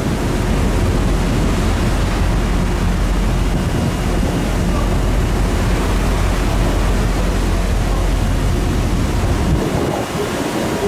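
Steady rush of wind and sea water heard from the deck of a moving ferry, with wind buffeting the microphone over a constant low drone from the ship.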